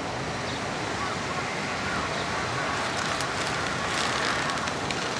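Distant shouting voices of young people playing softball, faint over a steady outdoor background hiss. The voices grow a little louder from about the middle to near the end.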